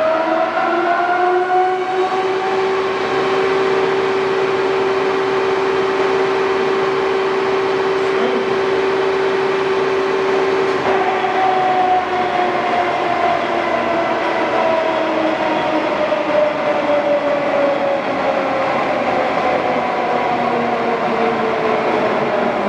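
LeBlond Regal heavy-duty engine lathe running at its top spindle speed of 1080 RPM, the headstock giving a steady whine that rises in pitch in the first couple of seconds and then holds. About halfway through, a falling whine sets in and keeps dropping, as the spindle winds down.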